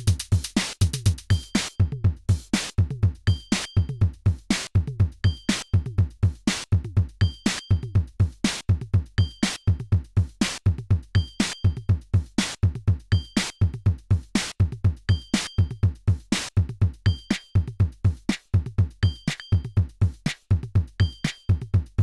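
Korg drumlogue drum machine playing a looping beat: analog kick drum thumps that drop in pitch, sharp clicking hits, and a short high two-tone blip about every two seconds.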